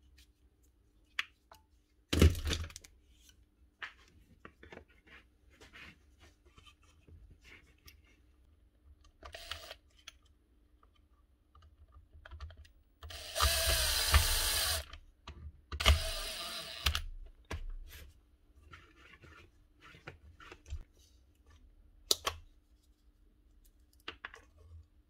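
Small clicks and taps of hand tools and wire being handled, with a short loud burst about two seconds in. About halfway through, a cordless drill-driver runs twice, once for about a second and a half and then for about a second, driving a screw beside the planer's new power lead.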